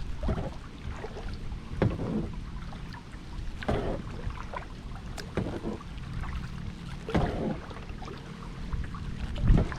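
Kayak paddle strokes dipping and splashing in the water, about six strokes at an even rhythm of one every couple of seconds, over a steady low rumble.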